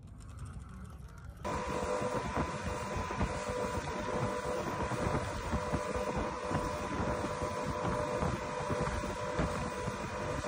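Motorboat running at speed: a steady engine hum under rushing water and wind buffeting the microphone, cutting in abruptly about a second and a half in. Before that, only a low wind rumble.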